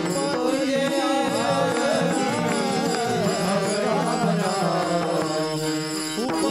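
A varkari chorus sings a devotional abhang in long, drawn-out notes to the steady clash of taal, small brass hand cymbals, with a hand drum beneath.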